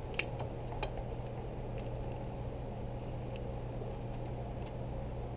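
Light metallic clinks and ticks of a Glock 19 slide being fitted into a steel sight-pusher tool, two sharper ones within the first second, over a steady low hum.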